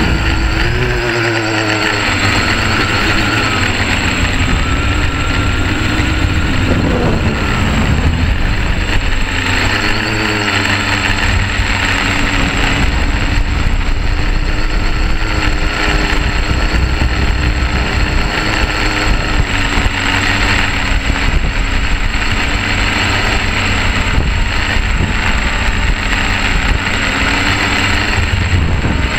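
Quadcopter's electric motors and propellers buzzing, picked up by the camera on board, with several tones sliding up and down as the throttle changes, over a steady rushing noise.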